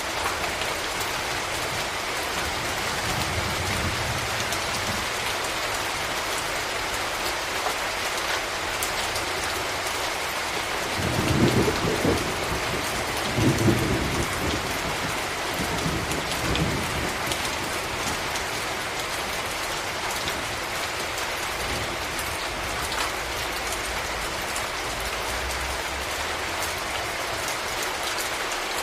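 Steady tropical rain falling, an even hiss throughout. Low rumbles of thunder come in the middle, the loudest two about eleven and thirteen and a half seconds in, with a weaker one near seventeen seconds.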